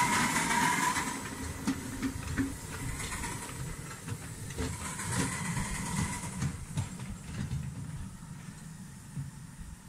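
A miniature De Winton vertical-boiler steam locomotive hisses steam as it pulls away, with scattered clicks from its wheels on the track. It fades steadily as it moves off.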